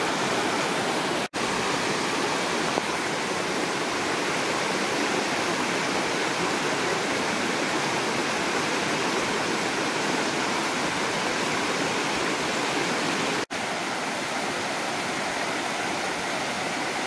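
Rocky mountain creek rushing over stones in whitewater, a steady rush of water that cuts out for an instant twice, about a second in and near the end.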